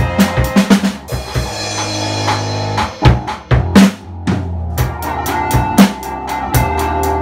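Acoustic drum kit with Meinl cymbals played along to a backing track: a steady beat on kick, snare and cymbals thins out about a second in while the track's bass and keys hold, then a short fill brings the groove back.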